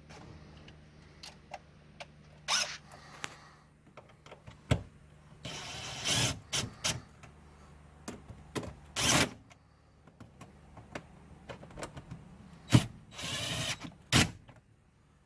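Hand tools working on a car's shifter assembly while solid shifter bushings and bolts are being fitted: scattered clicks and knocks of metal and plastic, with several short rasping bursts.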